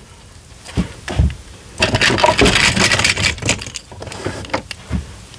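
Small plastic toys clattering and rattling against each other as hands rummage through a cardboard box full of them: a couple of knocks, then a denser stretch of rattling about two seconds in, and another knock near the end.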